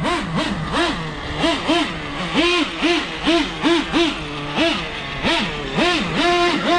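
Traxxas Revo 3.3 nitro truggy's TRX 3.3 two-stroke nitro engine being blipped: the pitch rises sharply and drops back again and again, about twice a second, as the throttle is pumped. Near the end it holds a higher rev for a moment.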